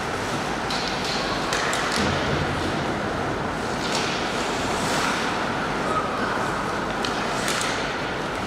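Ice hockey game sound in an arena: skates scraping the ice, with scattered sharp clacks of sticks and puck and a steady background din.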